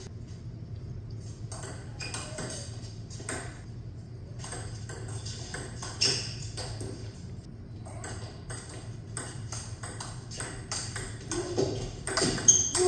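Table tennis ball being hit back and forth in rallies: quick, sharp clicks off paddles and table, a few isolated ones at first, then a fast run of them that grows loudest near the end.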